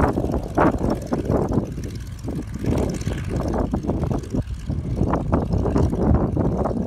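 Radial engine and propeller of a 1941 Stearman biplane running at taxi power, with an uneven, fluctuating sound.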